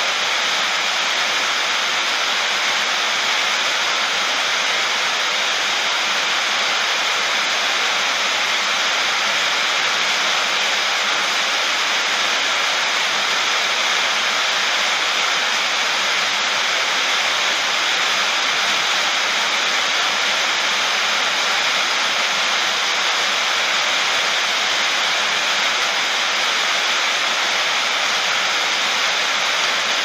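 Heavy rain falling on a sheet-metal roof: a dense, even hiss that holds steady, with no thunder.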